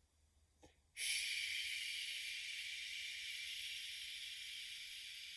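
A person breathing out a long, steady "shhh" hiss, the liver healing sound for the wood element in qigong's six healing sounds. It starts about a second in and slowly fades.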